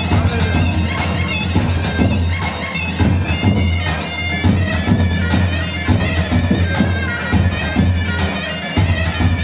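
Loud Kurdish wedding dance music: a reedy, bagpipe-like wind melody over a steady low drone, with a driving drum beat.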